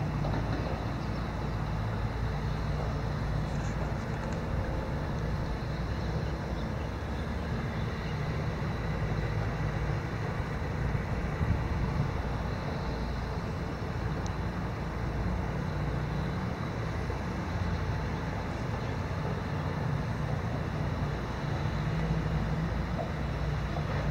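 Steady low rumbling ambient noise of a flowing river, even throughout with no distinct events.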